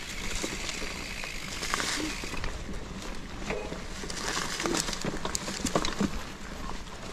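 Dry leaves and twigs rustling and crackling on a forest trail, with scattered light clicks and snaps.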